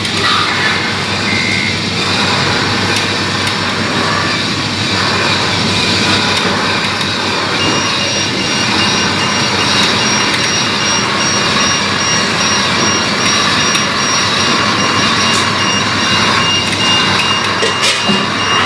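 A radio-controlled model truck's sound module running a simulated truck engine, with a reversing beeper that starts about eight seconds in and keeps going.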